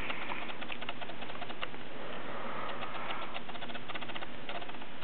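Fingers and hair rubbing on shirt fabric right beside the microphone: soft, irregular crackling and ticking.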